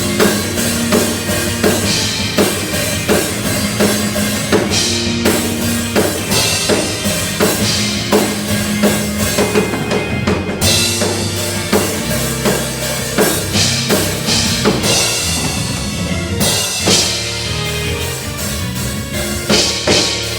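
Music driven by a drum kit, with kick, snare and rimshot strokes keeping a steady beat over a bass line.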